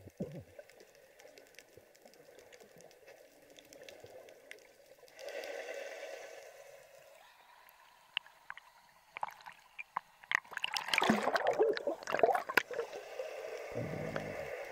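Sea water heard through a camera held at and under the surface: a muffled underwater hush with scattered sharp clicks, then loud irregular splashing and sloshing about ten seconds in as the camera breaks the waterline.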